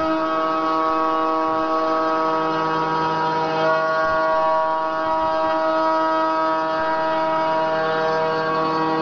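HSD HS 655 spindle on a 5-axis CNC router running at speed while its cutter mills a laminated wooden ring: a steady, many-toned machine whine over a hiss of cutting, its tones shifting slightly a few times as the head moves.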